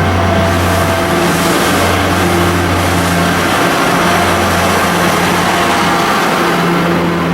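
C57 steam locomotive and its train at a station: a loud, steady rushing sound over a low hum, with no whistle.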